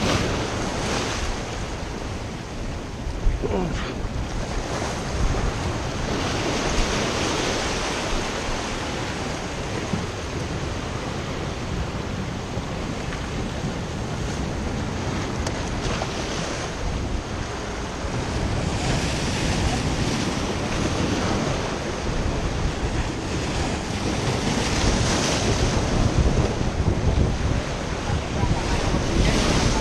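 Ocean surf washing over the jetty rocks in repeated surges, with wind buffeting the microphone.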